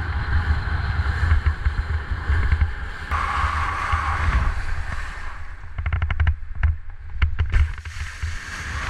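Strong wind buffeting an action camera's microphone while a kiteboard skims over choppy lake water, the spray hissing off the board. About six to seven and a half seconds in comes a run of short splashes and slaps as the board hits the chop.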